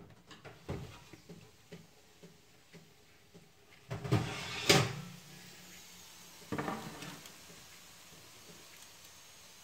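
Light handling clicks, then a metal baking tray of oven fries set down on an electric stovetop with two loud knocks about four seconds in, and another knock about two seconds later.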